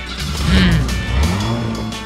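Cartoon motor-vehicle engine sound effect, revving up and down in low pitch twice, over background music.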